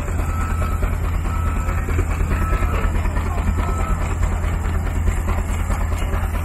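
An engine running steadily, with a rapid, even low beat.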